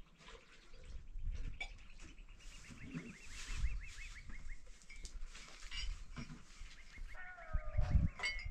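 Animal calls: a rapid series of short high chirps that runs for about three and a half seconds starting about a second in, then a falling call near the end, with scattered low knocks underneath.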